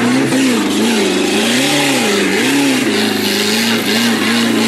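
An off-road 4x4's engine revving up and down over and over as it crawls through mud, its pitch rising and falling about once a second.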